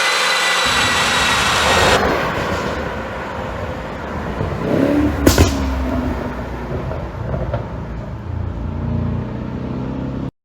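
Mercedes-Benz S500's twin-turbo V8 running and being revved with an exhaust-popping ECU tune, with a sharp pop about five seconds in. A steady high whine fills the first two seconds before the sound changes abruptly, and everything cuts off just before the end.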